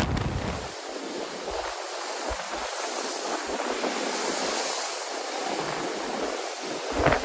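Heavy, hurricane-driven surf breaking and washing over a seawall: a steady rushing hiss of churning water. Wind buffets the microphone in the first moment and again briefly near the end.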